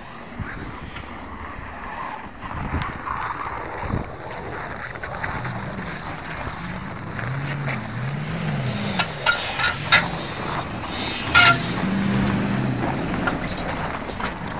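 Off-road SUV engine revving up and down again and again as the vehicle fights its way over snow mounds with its wheels spinning. A few sharp squeaks come in the middle, the loudest one after about eleven seconds.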